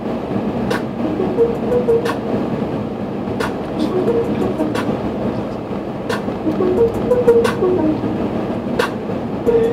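Car cabin noise on a rough country lane: a steady rumble of tyres and engine, with irregular sharp knocks every second or so as the car rides over bumps.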